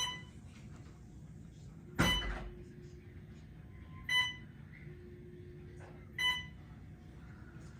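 Hospital bedside machine beeping: a short beep repeating about every two seconds, four times.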